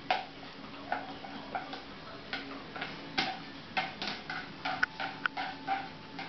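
Irregular sharp clicks and taps from a beagle puppy's claws and its toy on a tile floor as it plays and scampers about, over a faint steady hum.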